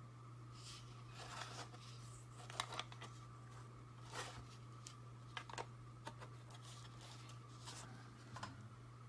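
Small hard plastic toy parts being handled, giving scattered light clicks and rustles, over a steady low hum.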